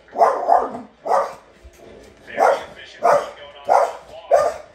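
A dog barking repeatedly, about seven sharp barks at uneven intervals, as it races over an agility course, heard through a television's speaker.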